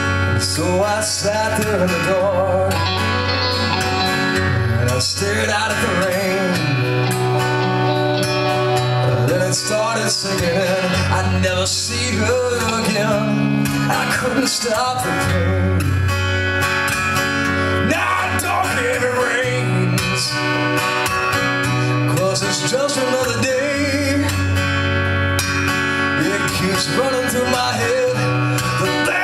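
Live amplified acoustic guitar with a male voice singing, over a steady, repeating low bass line, played through a PA system.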